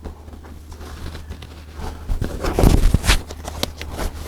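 Heavy canvas being handled and positioned at a sewing machine: rustling, scraping and light knocks, busiest in the second half, over a steady low hum.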